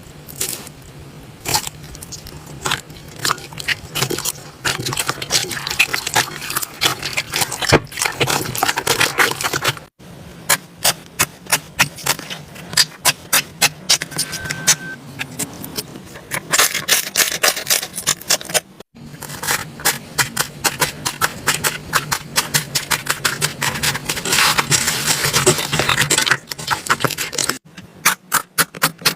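Slime being squeezed, poked and stretched by hand, making quick sticky clicks and popping air pockets with a crackle between them. The sound drops out briefly three times.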